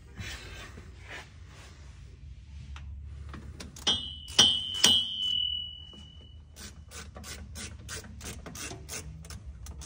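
Socket ratchet clicking as nuts on a transfer-case adapter are tightened, turning in a regular run of clicks at about four a second in the second half. About four seconds in come three sharp metal clinks, the last ringing on briefly.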